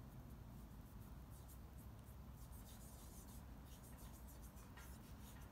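Near silence: room tone with a low steady hum and faint, scattered scratchy rustles.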